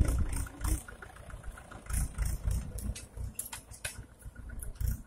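Farm tractor's diesel engine running as the tractor pulls a tine cultivator away, a low uneven rumble with a few sharp clicks and rattles between two and four seconds in.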